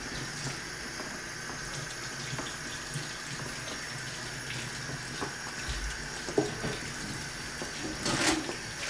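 Tap water running steadily into a sink, with small clicks and a sharp knock about six seconds in and a short rustling burst near the end.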